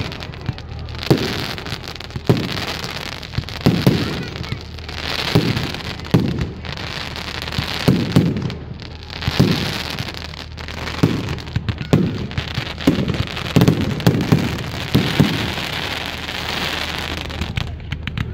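Aerial fireworks going off in quick succession, about one bang a second, with a dense crackling hiss from the bursting stars between the bangs.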